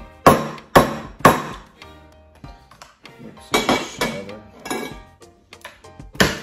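Cooked lobster shells cracking and snapping as they are broken apart by hand: three sharp cracks in quick succession in the first second and a half, a cluster more around the middle and another near the end.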